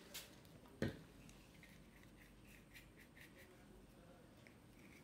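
A single sharp knock about a second in, a small bottle set down on the craft table, followed by faint light scratching and ticking of a paintbrush dabbing paint onto the canvas.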